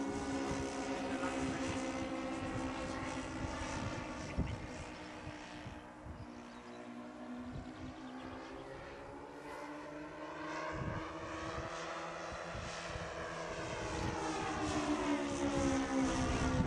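Giant-scale radio-controlled C-130 Hercules model aircraft flying overhead, its motors and propellers making a steady drone. The drone fades in the middle as the model moves away, then grows louder again near the end with a slight bend in pitch.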